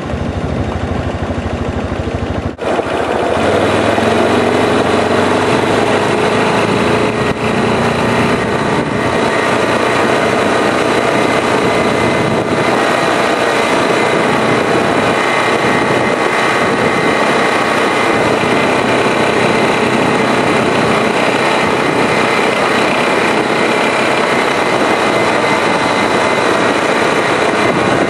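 Honda ATV engine running as the quad rides along a dirt trail, a steady engine note; it drops briefly about two and a half seconds in, then picks up louder and holds steady.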